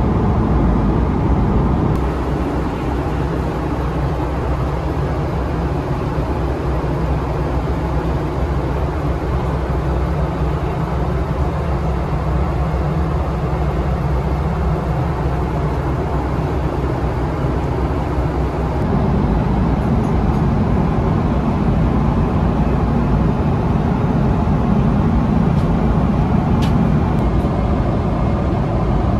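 Steady cabin noise of a Boeing 777-300ER in flight: an even rush of airflow over a low engine drone. The low end shifts slightly about two seconds in and again a little past halfway.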